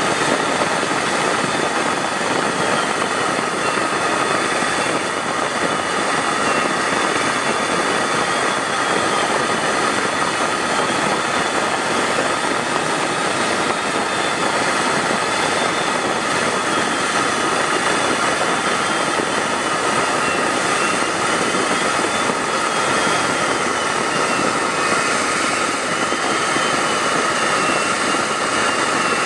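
Steady in-flight aircraft engine and airflow noise: a constant rush with a steady whine and a fainter tone that wavers slowly up and down.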